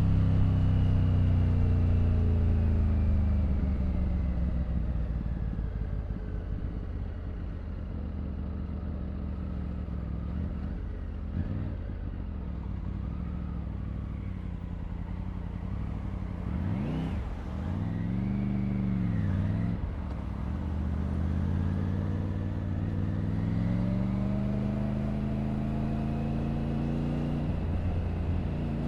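Triumph Tiger 900's inline-three engine heard from the rider's seat. Its note falls as the bike slows and then runs low for a while. A little past halfway the revs rise and fall twice quickly, then the engine pulls with a steadily rising pitch as the bike accelerates.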